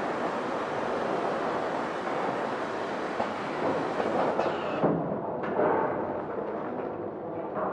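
Horizontal flow-wrap packing machine running while it wraps chickens in film: steady mechanical noise with a few faint knocks. About five seconds in, the sound loses its hiss and turns duller.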